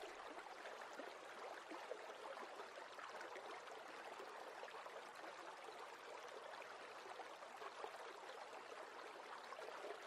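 Faint, steady sound of running water, a fine trickling hiss with no pitch to it.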